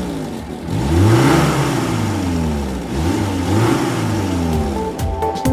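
Ice cream van engine revving up and down again and again. Electronic music with a beat comes in near the end.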